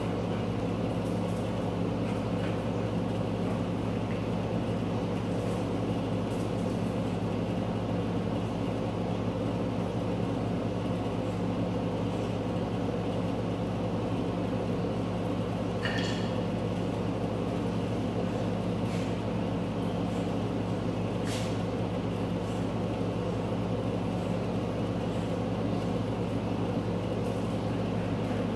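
Steady low mechanical hum with a few faint clicks, and a short high squeak about halfway through.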